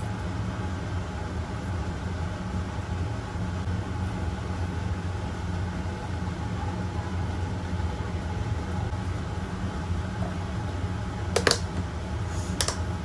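Steady low mechanical hum, like a fan, with two sharp plastic snaps near the end as the clip-lock latches of a plastic food-storage container's lid are pressed shut.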